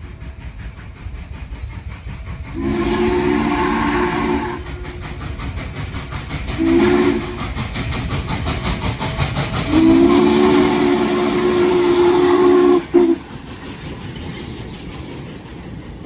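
Norfolk & Western 611's steam chime whistle blowing a long blast, a short one and another long one, the end of a grade-crossing signal. Rhythmic exhaust chuffs and steam hiss run underneath as the locomotive moves.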